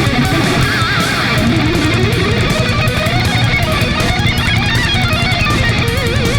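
Loud band music led by electric guitar, which plays a melodic line with wavering, vibrato-held notes over a dense, steady backing.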